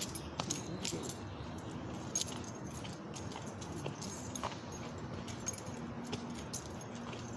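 A hand tool working and shaping garden soil: a steady scraping with many small, irregular clicks and chinks of grit and stones.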